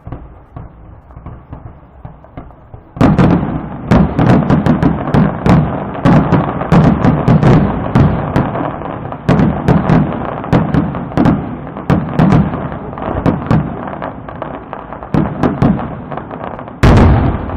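Fireworks display: a few scattered pops, then from about three seconds in a dense, continuous barrage of shell bursts and sharp cracks, with one especially loud bang near the end.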